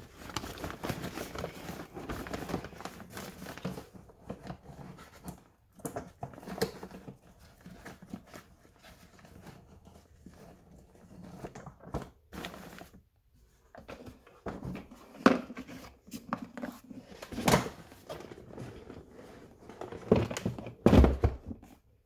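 Plastic clattering, clicks and rustling as a Shop-Vac Contractor wet/dry vac is put back together by hand, its parts and lid fitted onto the plastic canister. There are a few sharper knocks in the second half, the loudest near the end.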